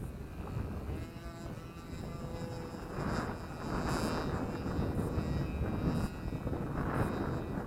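Small 8cc two-stroke gas engine of a flying RC model airplane droning in the air, overtaken from about three seconds in by gusts of wind rushing on the microphone.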